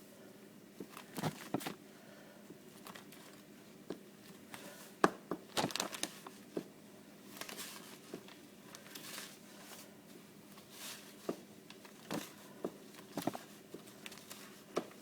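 Knife cutting strips of rolled biscuit dough into small dumplings: irregular sharp taps and knocks of the blade, louder around the middle.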